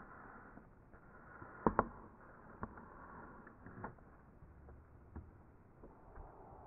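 A few scattered soft knocks and taps from a pet rabbit hopping on a rug and wooden floor, the loudest a close pair about two seconds in.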